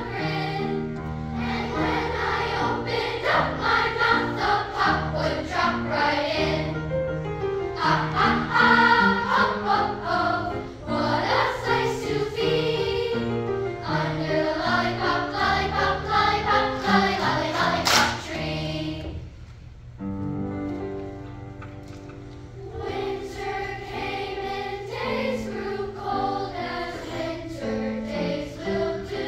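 Large children's choir singing together, with steady low sustained notes beneath the voices. About two-thirds of the way through the singing drops off sharply, then carries on more softly.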